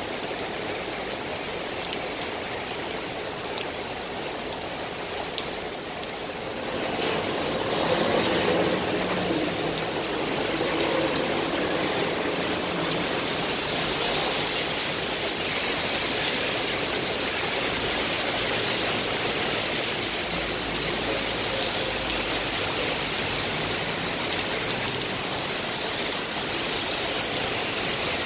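Heavy rain pouring steadily on the pavement and road, a dense even hiss that grows louder about seven seconds in.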